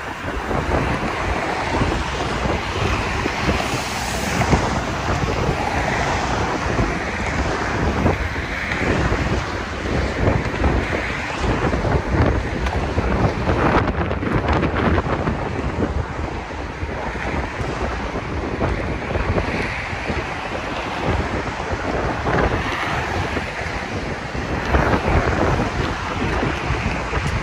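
Wind buffeting the microphone on the open top deck of a moving sightseeing bus, a steady loud rumble with road and traffic noise beneath it.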